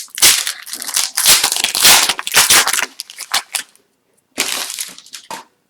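Upper Deck hockey card pack wrapper being torn open and crumpled by hand: loud crinkling and rustling for about three and a half seconds, then a shorter burst of crinkling about a second later.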